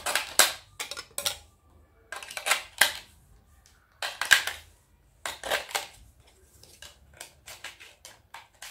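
Plastic clicks, snaps and rattles of hands working an RC truck's pistol-grip transmitter to get its battery cover off, in several short bursts, the loudest snap about four seconds in and a run of small quick clicks near the end.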